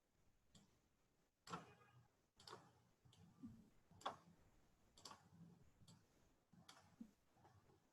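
Faint clicks of a computer mouse, unevenly spaced at roughly one a second.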